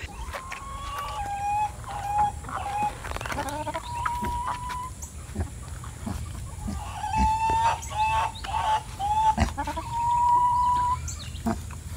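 A chicken calling twice, each time a run of short clucking notes that ends in one long drawn-out note, with scattered light rustling beneath.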